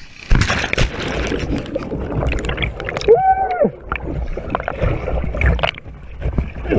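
Water splashing and churning right around the microphone during a plunge into a muddy pool, with many knocks and a low rumble; a brief shout rises and falls about three seconds in.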